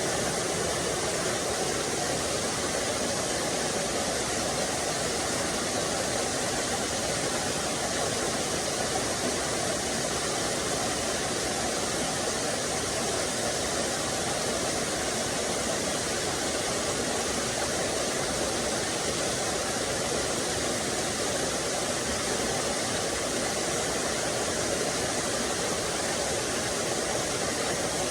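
Small waterfall on a forest stream: water pouring and rushing, a steady, even noise without breaks.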